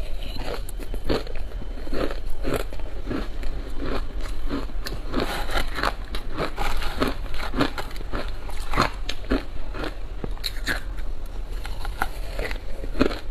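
Matcha shaved ice being bitten and chewed close to a clip-on microphone: a steady run of icy crunches, roughly two a second.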